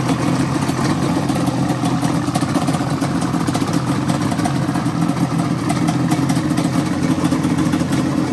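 Sport quad (ATV) engine idling steadily.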